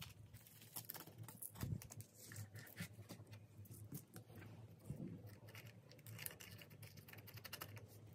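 Faint, irregular scratching, clicking and tapping of handwork on a plastic car part, over a low steady hum.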